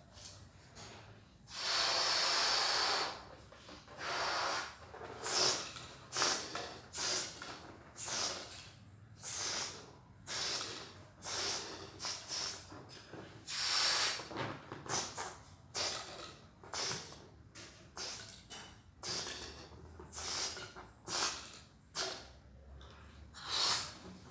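Air hissing out of the neck of an inflated party balloon in a string of short puffs, about one a second, with longer releases about two seconds in and around fourteen seconds. The puffs are aimed at disposable plastic cups to push them along a tabletop.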